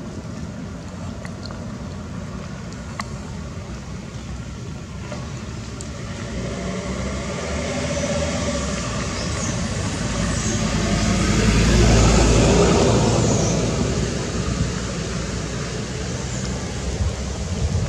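A motor vehicle passing by: a low rumble that builds from about six seconds in, is loudest around twelve seconds and then fades, over steady outdoor background noise.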